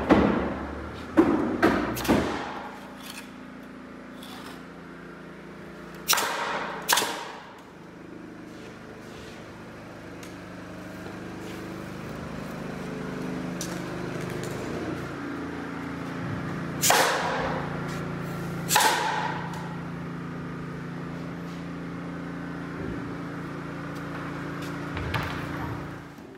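Cinematic background music: sustained low held notes, punctuated by a few sharp percussive hits and whooshing swells.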